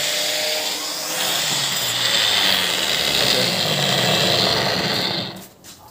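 Angle grinder running at full speed with no load, a steady high whine, in a test run of its newly fitted switch. About five seconds in it is switched off and winds down.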